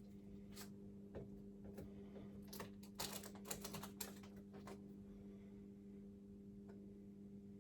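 Faint, scattered crinkles and clicks of masking tape being peeled off and handled, busiest about three to five seconds in, over a steady low hum.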